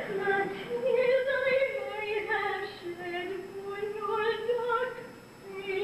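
A high woman's voice, a soprano, singing a melodic line in operatic musical-theatre style, with vibrato on the held notes. The voice drops away briefly near the end before the next phrase begins.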